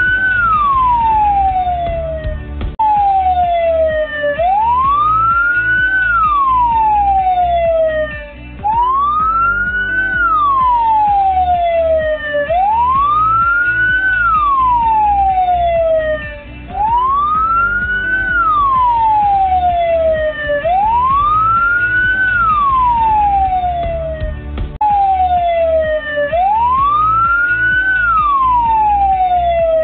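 Electronic emergency siren on a slow wail. Each cycle rises for about a second and a half and falls for about two and a half, repeating about every four seconds. A low rumble runs beneath it.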